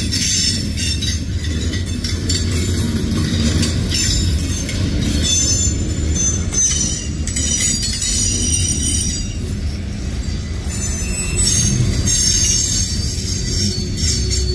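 Freight train of tank cars and covered hopper cars rolling past: a steady low rumble of wheels on rail, with high-pitched wheel squeal coming and going.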